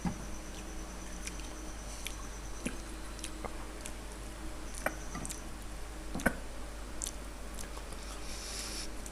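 A person quietly chewing a raw green chilli, with scattered soft wet mouth clicks.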